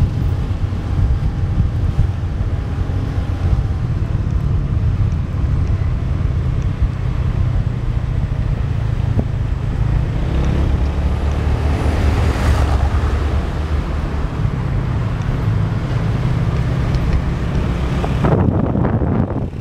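Wind rumbling over the microphone of a moving motorbike, mixed with the bike's engine and road noise from the traffic around it. There are a brief louder hiss about twelve seconds in and choppy gusts near the end.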